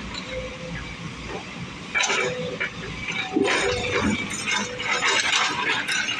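Broken road surface and rubble clinking and cracking as an excavator bucket digs through it, in irregular clusters of sharp clicks.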